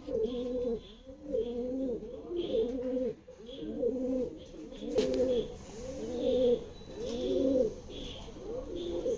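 Domestic pigeons cooing: a steady run of low, repeated coos, with faint higher chirps between them and one sharp click about five seconds in.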